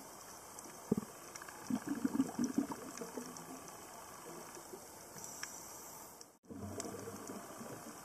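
Underwater ambience recorded through a camera housing: a steady hiss with scattered faint clicks, a thump about a second in, then a short burst of gurgling bubbles from a scuba diver's exhalation around two seconds in. The sound cuts out for a moment after about six seconds, then the hiss resumes.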